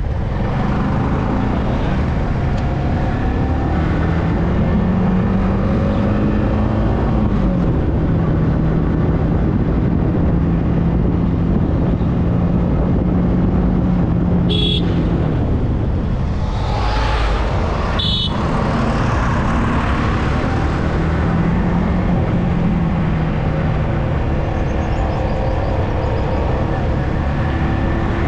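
Yamaha R15M motorcycle's 155 cc single-cylinder engine running on the road with heavy wind rush, its pitch dropping a little about seven seconds in. About halfway through come two short horn beeps, some three and a half seconds apart.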